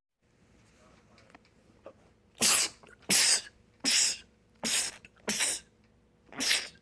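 A man sneezing six times in quick succession, each sneeze a short, sharp burst.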